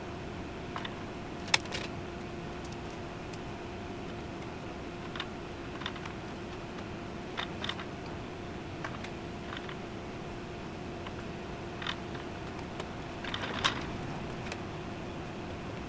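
Scattered light clicks and taps over a steady low hum, with one sharper click about a second and a half in and a short run of taps near the end.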